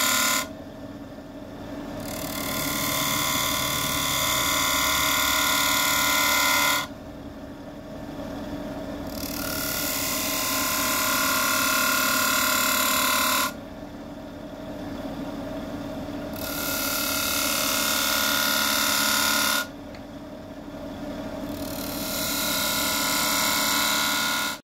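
Wood lathe running while a tool or abrasive is held against the spinning bowl blank in passes, giving a loud hissing scrape over the steady motor hum. The scrape lifts off four times, about every six seconds, and builds back up each time.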